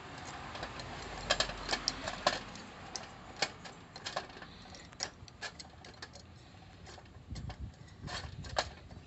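Folding metal pot-support arms of a Coleman single-burner gas stove being swung open by hand, giving irregular light metallic clicks and ticks.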